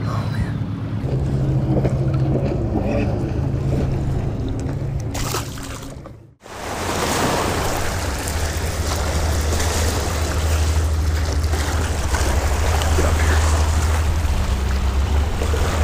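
Small lake waves washing over shoreline rocks, with wind rumbling on the microphone. The sound drops out briefly about six seconds in, then the wash of water runs on steadily.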